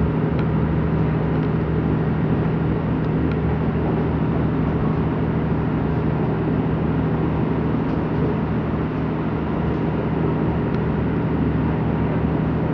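Inside the passenger saloon of an Irish Rail 29000 class diesel multiple unit: the steady drone of the diesel engine, with a constant low hum under broad running rumble.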